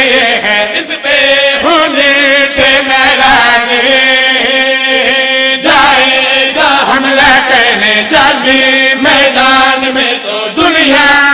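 Men's voices singing a devotional verse together into a microphone, in long, drawn-out phrases with wavering held notes; a new phrase begins about halfway through.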